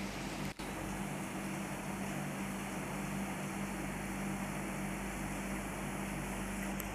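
Steady rain from a thunderstorm falling on a swimming pool and its surroundings, an even hiss with a steady low hum underneath. The sound cuts out for an instant about half a second in.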